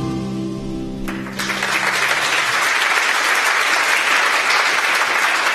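The last notes of a piece of music ring out and fade, and about a second and a half in an audience breaks into applause that carries on steadily.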